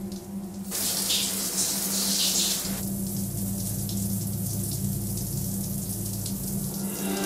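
Running water hissing steadily, getting suddenly louder a little under a second in and easing somewhat about three seconds in, over a steady low hum.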